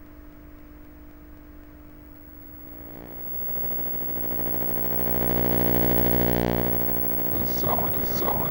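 An electronic hum with many overtones, like a glitching tape or signal, swells up over several seconds and then eases off slightly. A garbled, distorted voice breaks in near the end.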